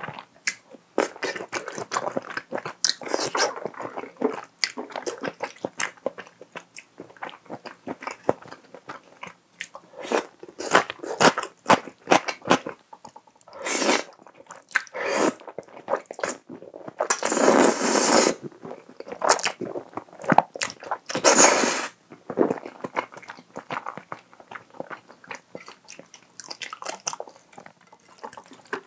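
Close-miked chewing and wet mouth sounds of a creamy pasta with shrimp, broccoli and mushrooms, with several loud slurps of wide noodles in cream sauce about halfway through.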